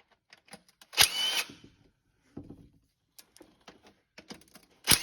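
A power tool run in two short bursts about four seconds apart, each about half a second long with a sharp click at the start and a high whine inside, with small clicks and taps in between: loosening the transmission pan bolts.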